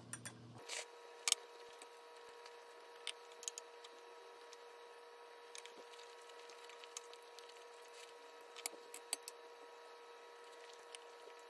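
Light, scattered taps and clicks of wooden chopsticks and a wooden spoon against a stainless steel pot and a bowl as ramen noodles are lifted and served, a few at a time with gaps between, over a faint steady hum.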